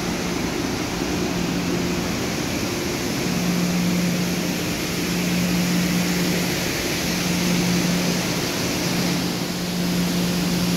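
Steady hum of industrial machinery over a broad hiss, the hum swelling and easing slightly without stopping.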